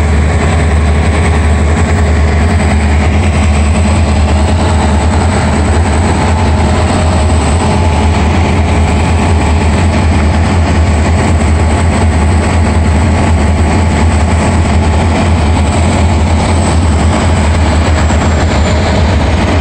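Two EMD diesel-electric locomotives, a GT26CW-2 with a 16-cylinder EMD 645 engine and a G26CW-2, running steadily as they haul a passenger train past, with the train's wheels rolling on the rails. A deep, continuous engine rumble carries through.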